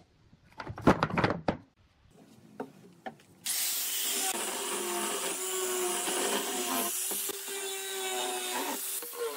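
Wooden boards clatter down onto a workbench about a second in. From about three and a half seconds, an angle grinder with a sanding disc runs steadily as it sands a wooden board, a whine over a rushing grind.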